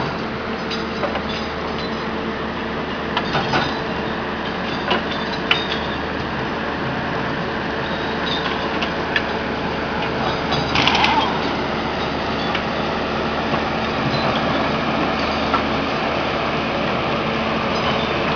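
Track-renewal work train's machinery running with a steady droning hum as it moves slowly past, with scattered metallic knocks and clinks and a short clatter about eleven seconds in.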